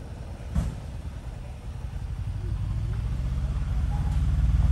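A motor vehicle's engine running, growing steadily louder through the second half. There is one sharp knock about half a second in.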